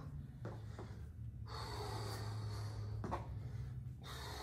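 A man breathing hard from exertion, with forceful exhales through the nose and mouth in two long bursts a couple of seconds apart, timed to squats and front kicks. A couple of light knocks, and a steady low room hum underneath.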